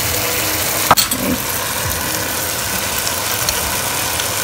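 Boneless chicken pieces frying in oil in a karahi, a steady sizzle under a faint steady hum, with one sharp click of a utensil about a second in.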